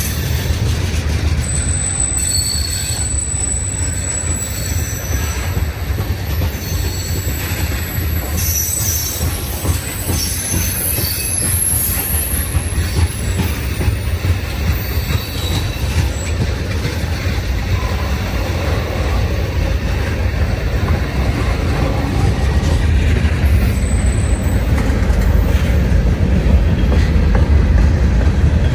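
Freight train rolling past: a steady rumble of railcars with thin, high wheel squeals that come and go, growing a little louder near the end.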